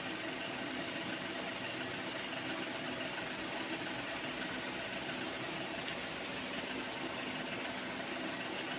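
Steady mechanical hum with an even hiss and faint constant tones, unchanging throughout, with one small click about two and a half seconds in.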